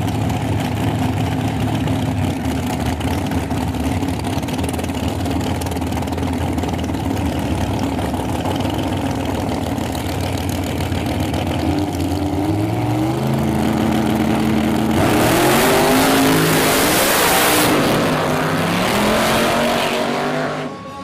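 Two big-tire drag race cars of about 3,000 horsepower idling together at the starting line, their engines then revving up in steps. About fifteen seconds in they launch with a loud blast of engine noise that lasts several seconds before easing off as they pull away.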